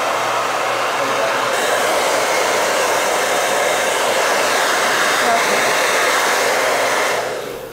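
Handheld hair dryer blowing steadily while drying a cat's coat, then switched off and dying away shortly before the end.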